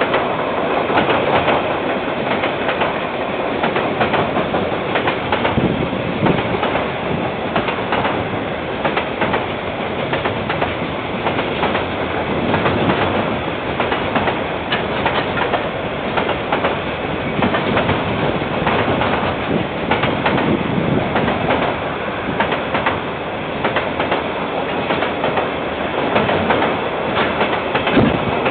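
KiwiRail container freight train's wagons rolling past, a steady rumble of wheels on rails with frequent sharp clicks as the wheels cross rail joints, picked up by a security camera's microphone.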